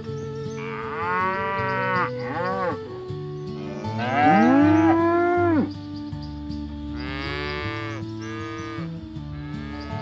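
Village cattle mooing several times, a series of rising-and-falling calls, with the loudest and longest moo about four seconds in.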